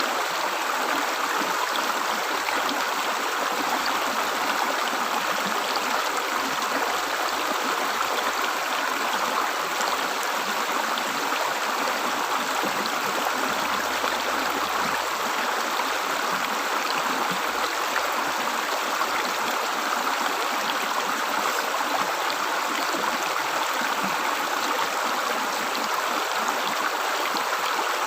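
River water gurgling and rushing in a steady, unbroken flow.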